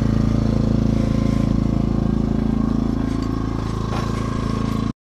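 An engine running steadily, a low even hum with a fast pulse, that cuts off suddenly near the end.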